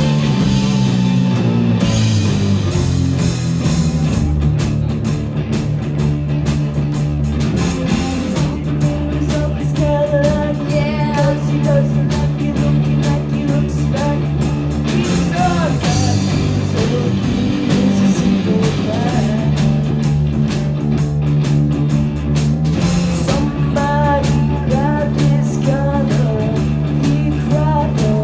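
Live rock band with electric guitars, bass, keyboard and drum kit playing a psychedelic rock song, a woman singing the lead vocal from about ten seconds in.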